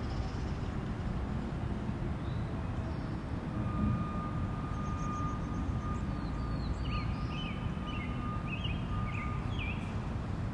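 Steady low outdoor rumble with a faint, level high tone in the middle; in the second half a small bird chirps repeatedly.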